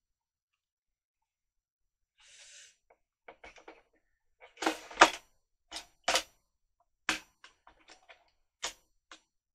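Hard plastic model-kit parts clicking and knocking as they are handled and pressed into place by hand: about a dozen short sharp clicks, the loudest about five seconds in, after a brief soft hiss a little after two seconds.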